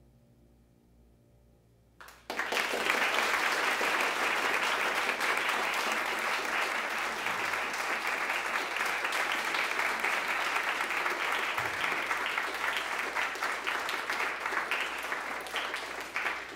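Audience applause after a string quartet's closing note has faded to a hush. The clapping breaks out suddenly about two seconds in, holds steady, and thins to scattered claps near the end.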